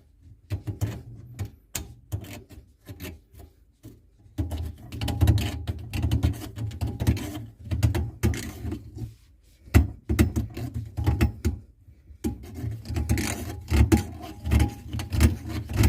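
Hand deburring tool scraping round the inside of a cut 15 mm copper pipe end in irregular runs of short strokes, with brief pauses about 4, 9 and 12 seconds in.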